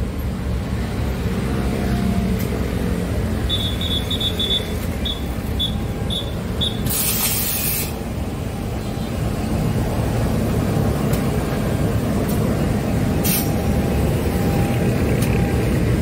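Diesel-electric locomotive running slowly past at close range, its engine a steady low rumble. A short run of high beeps starts about three and a half seconds in, then a sharp burst of air hiss comes about seven seconds in and a shorter one near thirteen seconds.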